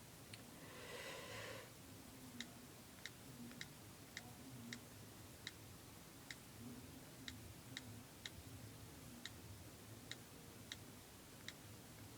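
Faint keyboard clicks from an iPod touch's on-screen keyboard, one short tick per key tap, coming unevenly at about two a second as a sign-in is typed. A brief soft rustle about a second in.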